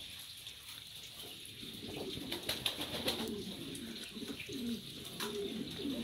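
Reversewing Pouter pigeons cooing: low, wavering coos that start about two seconds in and come again several times, with a few sharp clicks in the middle.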